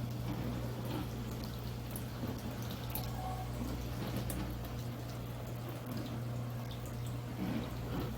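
Tap water running and dripping into a sink, with scattered small drips and splashes over a steady low hum.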